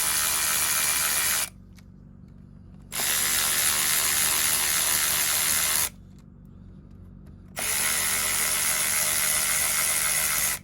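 Cordless electric ratchet spinning out the locking hub's retaining bolts, in three steady runs of about three seconds each, with short pauses between them.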